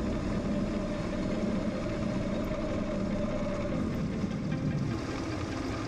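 Milling machine running an 8 mm end mill in an ER32 collet chuck, cutting an opening through 3 mm plate: a steady machining sound with no breaks.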